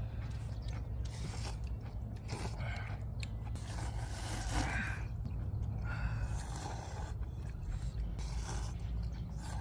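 People slurping spicy ramen noodles and sipping broth from bowls: a run of short, wet slurps and sips, several seconds apart, over a steady low rumble.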